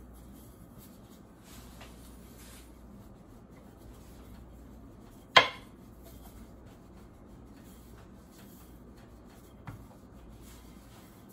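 Wooden rolling pin rolling out dough on a floured countertop: faint, steady rubbing. One sharp knock about halfway through and a lighter one near the end.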